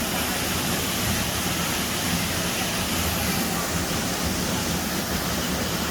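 Steady rush of a waterfall pouring into a pond, an even, unbroken noise.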